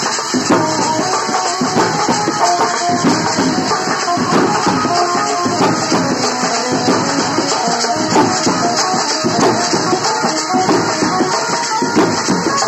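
Music with drums and hand percussion playing continuously.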